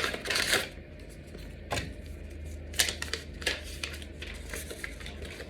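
Packaging rustling and crinkling as a trading card is handled for the first moment, then a few scattered sharp clicks and taps, over a steady low hum.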